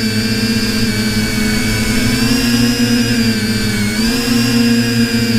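Brushless motors and propellers of a TBS Discovery quadcopter running with a steady whine, picked up by the camera on board. The pitch dips briefly and recovers about four seconds in as the throttle changes.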